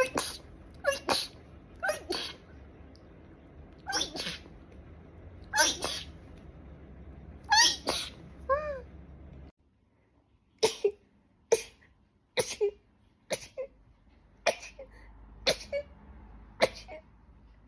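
A person sneezing in rapid fits: a run of about eight sharp sneezes in quick succession, then, after a short break, another run of about eight.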